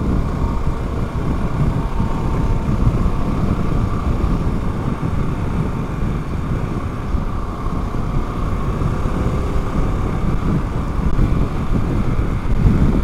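Harley-Davidson Pan America Special's 1252 cc 60-degree V-twin running steadily at highway speed, about 65–70 mph, mixed with a steady rush of wind.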